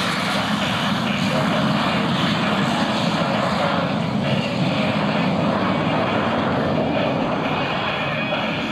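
Jet-powered Waco biplane's engines running steadily in flight, a loud continuous drone and rush with only slight swells.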